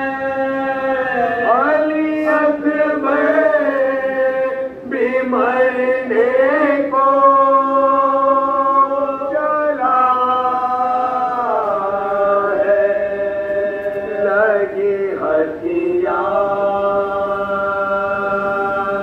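Men's voices chanting a noha, the Shia Muharram lament for Imam Husain, unaccompanied, with long held notes and slow slides between pitches.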